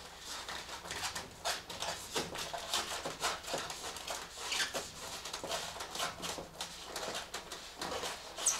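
Irregular rustling, scraping and light clicks of plastic-sheathed Romex cable being handled and pushed into the raceway channels of foam insulation panels, with a sharper high click near the end.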